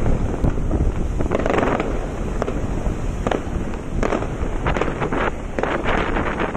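Wind buffeting the microphone over the rush of water churning at the base of a large ship's hull as it slides into the river at its launch, with a string of irregular sharp cracks through it.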